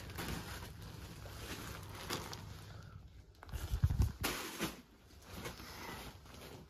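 Handling noise: rustling, with a cluster of dull thumps and knocks about four seconds in, as cushions are moved and held up.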